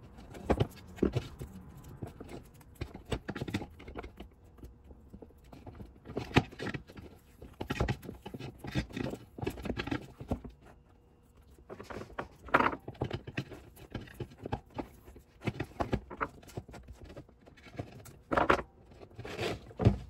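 Black electrical tape being pulled off the roll in short, irregular pulls and wound around a spliced power cord, with the rubber cord rubbing and tapping against the workbench.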